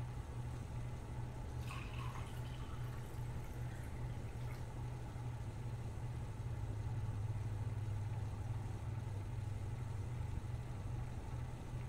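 Steady low hum, with a few faint light clinks or trickles between about two and four and a half seconds in.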